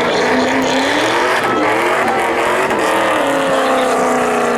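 Pickup truck engines at hard throttle during a drag-race run, pitch climbing early on and then holding steady from about three seconds in.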